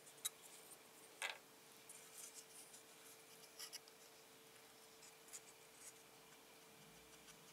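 Faint handling sounds from a RAMPS 3D-printer controller board being turned over in the hands: scattered small clicks and rubs of fingers on the plastic connectors and circuit board, the sharpest about a second in, over a faint steady hum.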